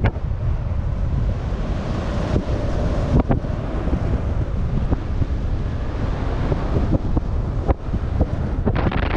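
Airflow of paraglider flight buffeting the camera microphone: a steady low rumble, with a few sharp crackles about three seconds in and near the end.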